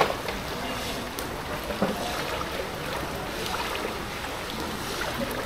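Shallow floodwater sloshing and swishing as someone wades slowly through it, with a small splash about two seconds in.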